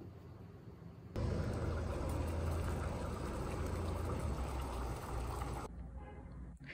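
Water boiling hard under a metal steamer basket of dumplings on a gas stove, a steady rushing bubble and hiss with a low rumble. It starts suddenly about a second in and cuts off sharply near the end.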